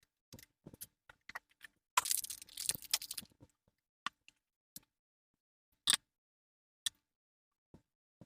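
Scattered small clicks and knocks from handling the parts of a power cord and male plug being fitted, with a scraping, tearing noise lasting about a second, about two seconds in.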